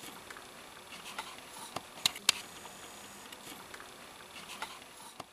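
A few scattered light clicks and ticks over a steady background hiss, the sharpest pair a little after two seconds in.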